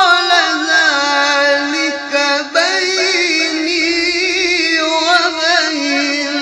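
A man chanting a Quranic verse in maqam Rast in a high register (tajwid-style recitation). It is one long melismatic phrase, held and ornamented with rapid wavering turns, with a short break about two and a half seconds in before the line goes on.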